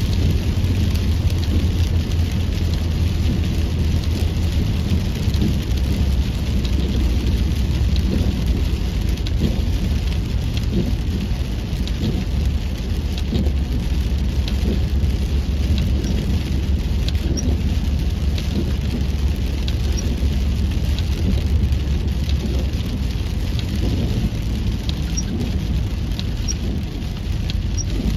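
Rain hitting a moving car's windshield and roof, with scattered small ticks of drops over an even hiss, above a steady low rumble.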